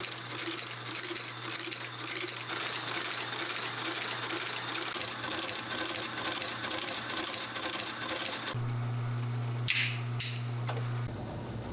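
Outsole stitching machine sewing a boot's new sole to its welt: a steady mechanical clatter of about three to four stitches a second over the hum of its motor. About eight and a half seconds in the stitching stops, leaving the motor humming, with a brief high scrape a second later.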